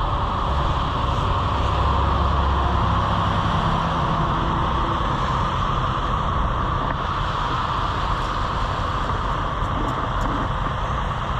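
Steady motor-vehicle noise with a low rumble that is strongest for the first few seconds.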